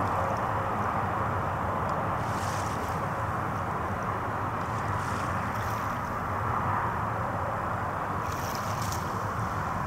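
Steady rushing outdoor background noise with no distinct event in it.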